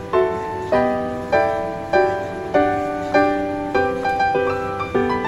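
Background piano music: soft chords struck at an even pace, about one every 0.6 seconds, each ringing and fading before the next.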